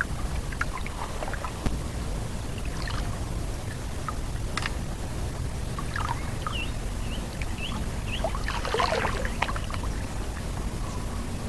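Water sloshing and splashing, with a burst of splashing about eight to nine and a half seconds in, over a steady low rumble. A few short high chirps come in just before the burst.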